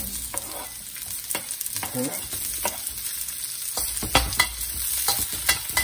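Chopped red onion, garlic and ginger sizzling in hot oil in a steel wok, while a metal spatula stirs them, scraping and clicking against the pan. There are a few louder clanks a little after four seconds in and again near the end.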